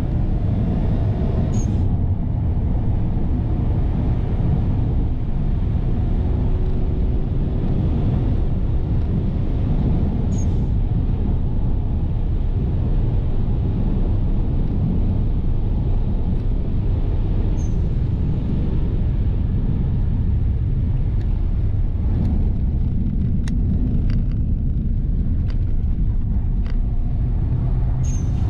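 Cabin noise of a 2005 Subaru Legacy's 2.0-litre turbocharged flat-four at speed on a race track: a loud, steady rumble of engine, tyres and wind while the car accelerates hard and then brakes hard. Brief sharp sounds come about every seven to eight seconds, and a few clicks come near the end as the car slows.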